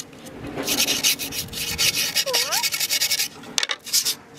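Quick back-and-forth rasping strokes of a folded scrap of Jessup grip tape sanding along the edge of a freshly gripped skateboard deck, scoring the tape's overhang before it is trimmed. The strokes stop a little past three seconds in, followed by a couple of light clicks.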